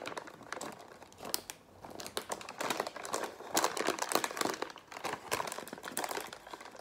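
Plastic crispy-seaweed snack bag being pulled open by hand, crinkling with many small irregular crackles.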